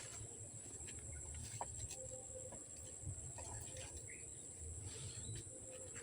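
A steady high-pitched insect drone, like crickets or cicadas, with a low rumble underneath and scattered faint clicks.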